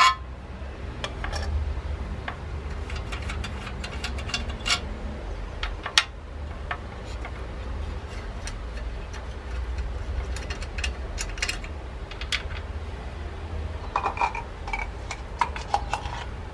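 Scattered metallic clicks, taps and clinks from handling a Mamod SE2a toy steam engine, as its burner tray is slid into place under the boiler and the boiler fittings are worked by hand, over a steady low rumble. The loudest tap comes right at the start and another about six seconds in, with a few short ringing clinks near the end.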